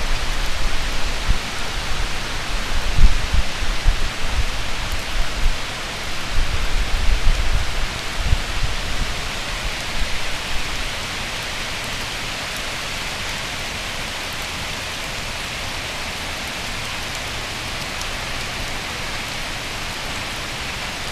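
Heavy tropical-storm rain falling in a steady hiss. For the first ten seconds or so, gusts of wind buffet the microphone in choppy low rumbles, loudest about three seconds in, then die away and leave the rain alone.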